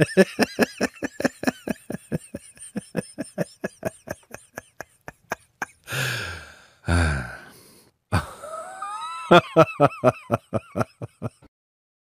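A person laughing hard: rapid rhythmic bursts of about five or six a second that gradually weaken, two longer drawn-out voiced breaths about six and seven seconds in, then a fresh fit of laughter with a rising squeal near nine seconds.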